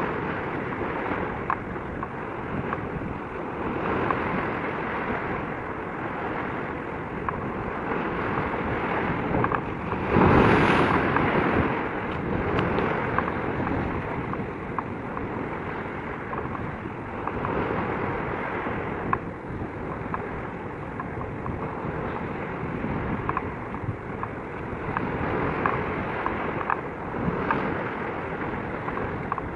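Wind buffeting the microphone over choppy sea water, with a stronger gust about ten seconds in.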